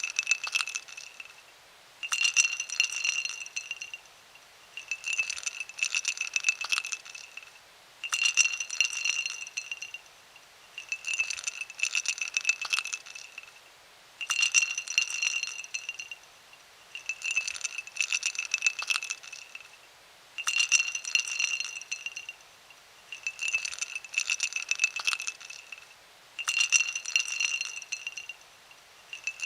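Ice cubes dropped into a glass, clinking and rattling against the glass and each other, with the glass ringing. The pour is repeated about every three seconds.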